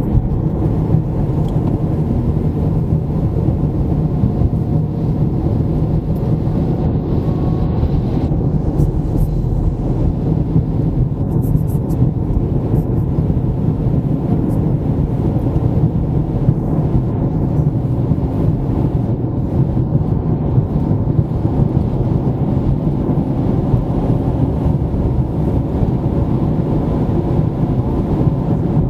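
Car driving on a highway: a steady low rumble of road and engine noise that keeps on without a break.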